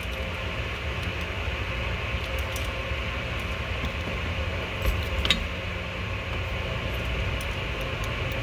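A couple of small clicks about five seconds in as the pump motor's end cap is worked into place over its brushes by hand. A steady low background hum runs underneath.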